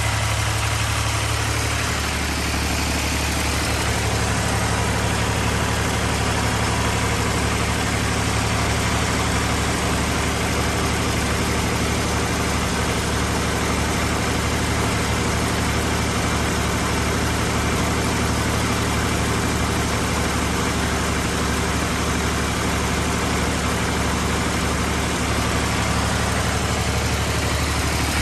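Fiat 480 tractor's diesel engine running steadily, with the even mechanical rush of a wheat thresher that it is driving.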